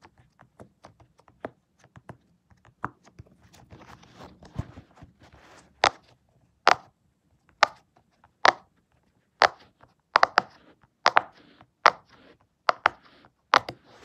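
Green silicone pop-it fidget toy being pressed, its bubbles popping one after another: faint clicks at first, then sharp pops about one or two a second from about halfway.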